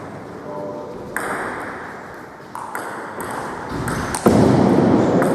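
Table tennis ball clicking off paddles and the table in a rally, a series of sharp ticks roughly half a second apart. Louder background noise swells in near the end.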